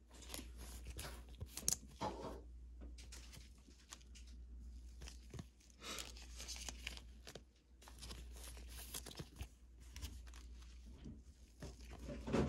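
Faint rustling and crinkling of a thin plastic card sleeve and glossy trading cards being handled by gloved hands, with scattered soft clicks, over a low steady hum.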